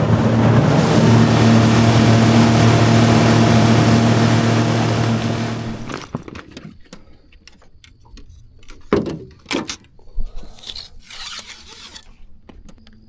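A tiller outboard motor drives a jon boat at speed, its engine note steady over the rush of wind and water. About six seconds in the motor sound cuts off abruptly. The rest is quiet, with scattered clicks and a couple of knocks.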